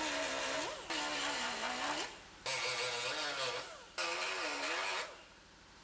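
Die grinder with a small abrasive disc grinding spot welds off a car's sheet-metal inner fender apron, in about four passes, its whine dipping and recovering in pitch as the disc bites into the metal.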